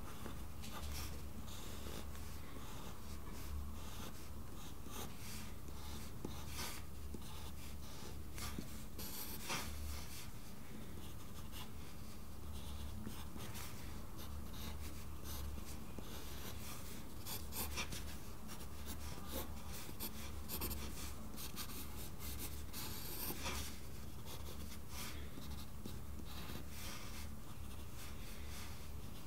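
Graphite pencil scratching on paper in many short, quick strokes, sketching and shading, over a steady low hum.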